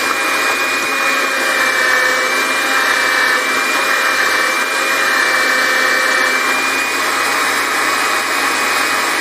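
Clatronic FW 2684 electric meat grinder's motor and plastic reduction gears running with a steady whine while the drive shaft is held back by hand. This is a load test of the freshly greased gearbox, and the hum grows louder under the load.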